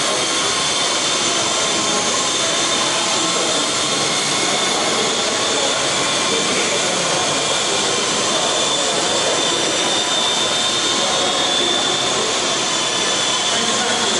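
Small electric coaxial-rotor RC model helicopter in flight: motors and rotor blades giving a steady high whine over a rushing hum.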